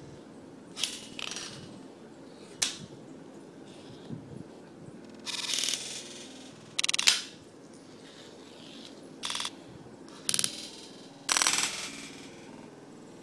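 Fingerboard tricks on a tabletop: several sharp clacks of the small deck popping and landing, and a few short scrapes of it rolling or grinding along a rail.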